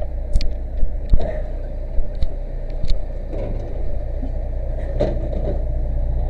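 Fire engine's motor running steadily with a low, even hum, with scattered sharp knocks and clicks over it.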